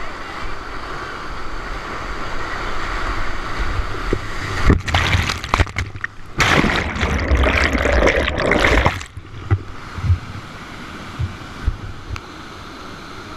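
River whitewater rushing, with loud splashing and water crashing over the microphone from about four and a half to nine seconds in, then a steadier rush with a few dull knocks.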